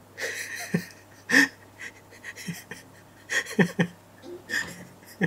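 A man laughing hard in a string of short, breathy gasps with little voice in them.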